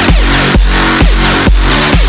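Electronic dance music with a steady kick drum about twice a second and a pumping bass line that swells between the beats.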